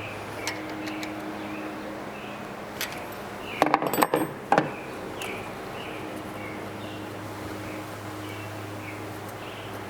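Metal hand tools clinking and clicking against a TU3JP engine's valve rocker adjuster as its lock nut is tightened after setting the valve clearance: a short cluster of sharp clinks in the middle, over a steady low hum and faint repeated chirps.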